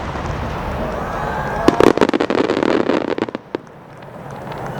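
Fireworks bursting overhead: a rumbling echo from the shells, then from about two seconds in a dense run of rapid crackling pops lasting about two seconds, ending with a single pop.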